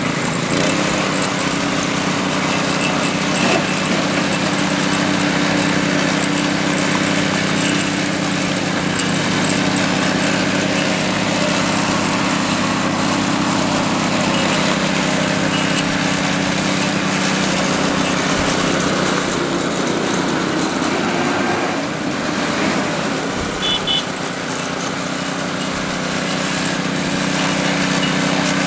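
Small petrol engine of a concrete power trowel running steadily. It eases off briefly about three quarters of the way through, then picks back up.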